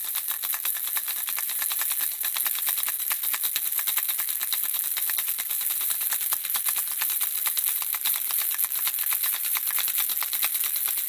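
Handheld baby rattle shaken steadily, the small objects inside making a dense, continuous stream of fine, bright clicks.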